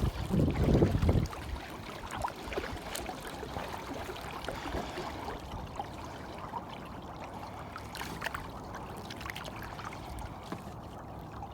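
Water trickling and splashing around a paddled kayak, with small scattered drips and splashes. A short gust of wind hits the microphone about a second in.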